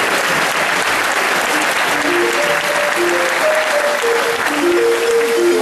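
Audience applauding steadily, with a melody of short, evenly pitched notes of show music coming in about two seconds in.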